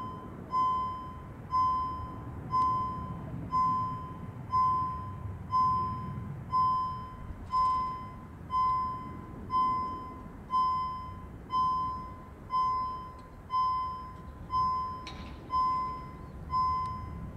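Railway level crossing warning bell ringing about once a second, each stroke sharp and fading quickly: the crossing is warning of an approaching train.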